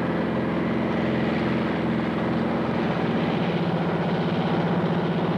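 Propeller airplane engine droning steadily in flight, with a fast pulsing beat in its tone that shifts slightly about three seconds in.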